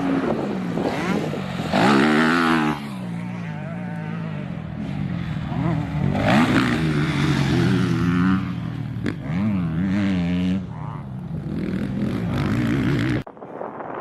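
Dirt bike engine being ridden hard, its pitch rising and falling over and over as the rider opens and closes the throttle. About thirteen seconds in it cuts off abruptly to a quieter wind sound.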